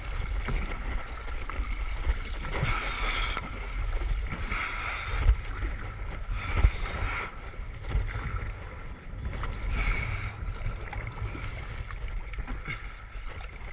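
Kayak paddle strokes, the blades splashing through the water four times with a longer pause before the last, over water washing along a plastic sit-on-top kayak's hull and a steady low rumble.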